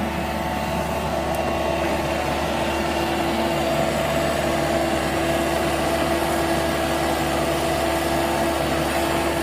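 Engine of heavy road construction machinery running steadily, with an even hum.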